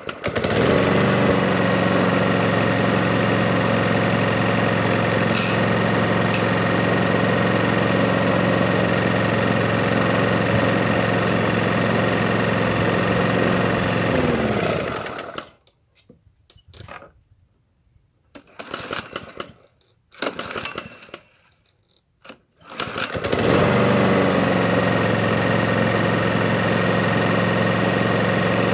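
A Hyundai petrol lawnmower engine, started on its repaired recoil starter, runs steadily at one speed. About 14 seconds in its pitch drops and it dies. Several short bursts follow as it is pull-started again, and it catches and runs steadily once more.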